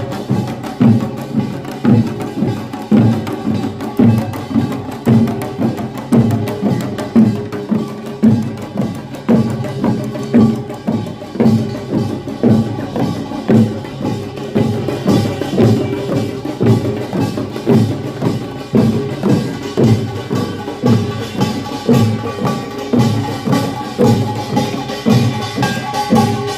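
Korean pungmul farmers' band of drums and gongs playing a steady, driving beat of strong strokes about twice a second, with the metal gongs ringing on over the drumming.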